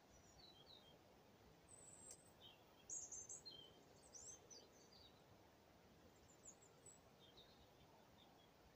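Faint background hush with small songbirds chirping and trilling on and off, the loudest run of chirps about three seconds in.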